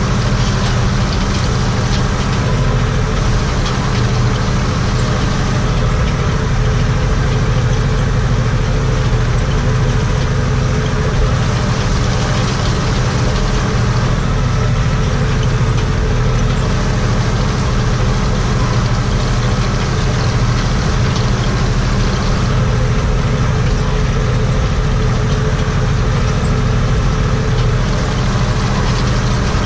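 Steyr 964 Turbo tractor's diesel engine running steadily under load while driving a rotary hay rake, heard from inside the tractor cab.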